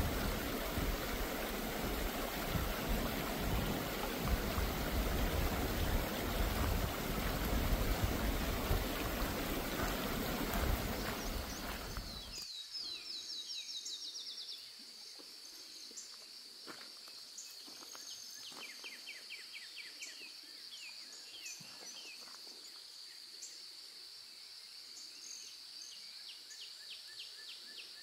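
Water rushing in a stream, a loud steady rush. About twelve seconds in it cuts to a quiet scene of a steady high-pitched insect buzz with scattered bird chirps and short trills.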